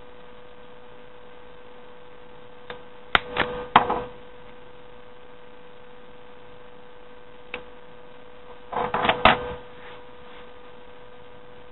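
Folded paper being handled and worked with the hands: short clusters of crisp clicks and crinkles about three to four seconds in, a single click near the middle, and another cluster near nine seconds, over a steady electrical hum.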